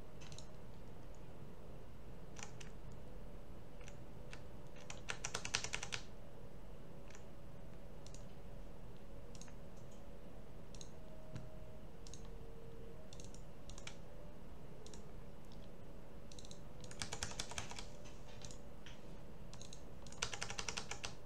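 Computer keyboard typing in three short flurries of keystrokes, about five seconds in, near seventeen seconds, and again near the end, with scattered single clicks in between over a faint steady hum.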